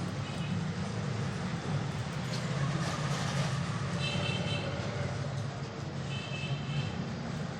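A steady low hum, with short high-pitched tones twice, about four and six seconds in.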